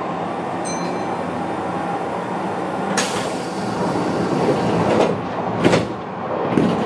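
Interior noise of a Kintetsu local train car: a steady rumble and hiss, broken by sharp hisses and knocks about three, five and six seconds in.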